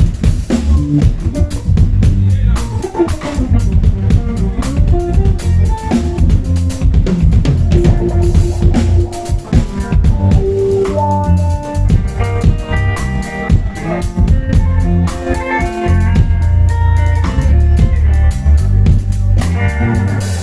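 Live band jamming instrumentally: a drum kit with rimshots and kick drum under a heavy bass line and melodic guitar lines, the melody getting busier about halfway through.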